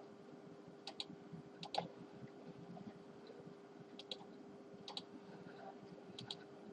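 Computer mouse clicking: about five sparse, sharp clicks, several in quick pairs, a second or so apart, over a faint steady electrical hum.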